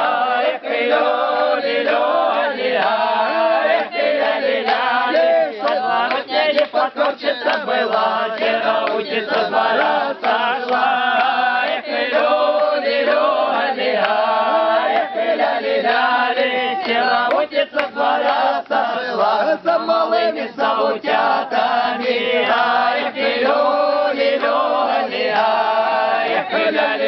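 Group of men and women singing a Slavic folk song together, unaccompanied, in long drawn-out sung lines.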